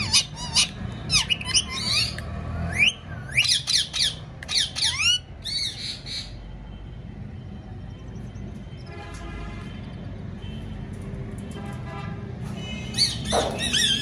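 Parrot squawking: a rapid series of harsh, screeching calls for about six seconds, then a quieter stretch, and another short burst of calls near the end.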